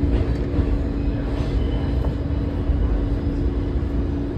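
Q subway train running, heard from inside the car: a steady low rumble with a constant hum over it.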